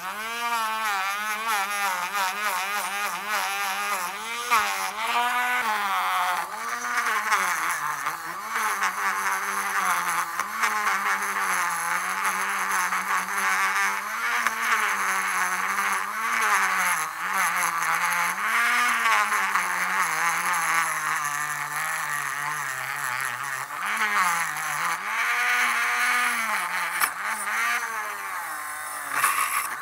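Rotary tool spinning a brass wire wheel brush against the steel jaw of an adjustable wrench: a high motor whine that repeatedly sags and recovers in pitch as the brush is pressed onto the metal, with the scratchy hiss of the bristles scrubbing the steel.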